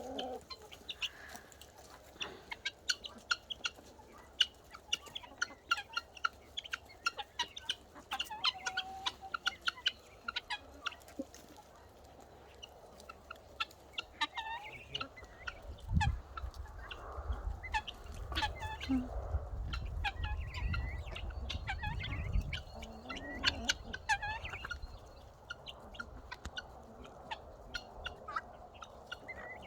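Chickens clucking and chirping, with many short, high calls throughout. A low rumble runs through the middle stretch, from about halfway in for several seconds.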